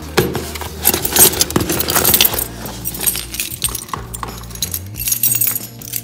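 A bunch of keys jangling and clinking in a hand at a door lock, most busily in the first half. A low steady hum runs underneath.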